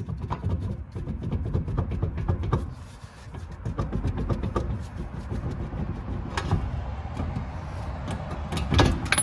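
Mitsubishi Mirage rear wheel and stuck brake drum being rocked and pulled back and forth on the hub to work the drum off: a continuous rattle of metal clunks and scraping, with a louder clunk near the end.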